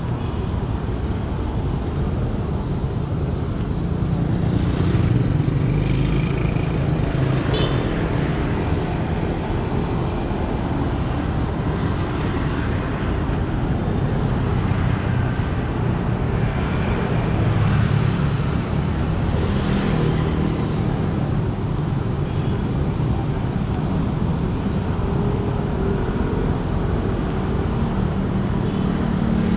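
Road traffic on a city street: a steady rumble of passing vehicles, swelling louder as vehicles go by about five seconds in and again past the middle.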